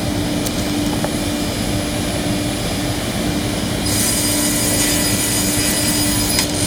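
Circular saw bench running with a steady motor hum, then about four seconds in its blade starts cutting through a bundle of wooden venetian-blind slats, adding a loud, high hiss.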